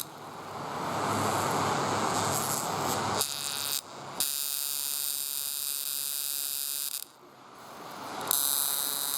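High-voltage ignition spark backfed into a distributor cap's number 2 terminal, firing rapidly as a steady electric buzz that stops briefly twice. The spark is arcing across to the neighbouring terminal through a burned track in the cap, the cause of the engine's misfire.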